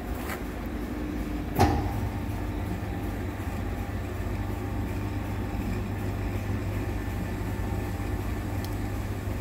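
Large lathe's spindle drive engaging with a sharp clunk about a second and a half in, then running with a steady low hum as it slowly turns a heavy CAT 777 suspension strut barrel.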